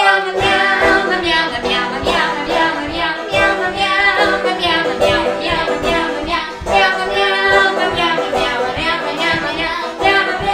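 Upbeat children's sing-along song: several voices singing a chorus over instrumental accompaniment with a steady beat, starting suddenly at full volume.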